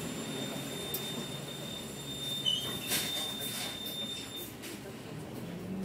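Cabin noise of a moving double-decker bus: a steady low rumble of engine and road, with a thin high whine held until about three-quarters through and a few light rattles.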